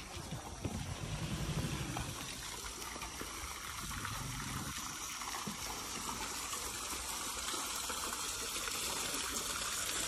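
Water trickling steadily, getting a little louder after the first second or two.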